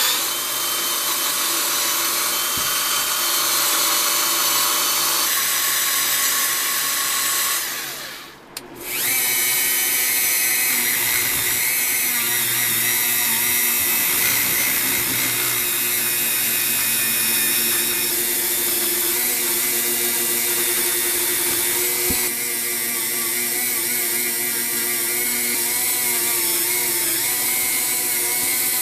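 A drill-like power tool running steadily. About eight seconds in it winds down and stops briefly, then starts up again and runs on.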